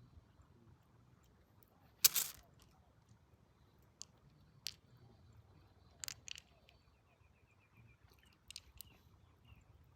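Scattered sharp clicks and short scrapes, like hard objects knocking and scraping together. The loudest is a brief scrape about two seconds in. They sound over a faint low hum.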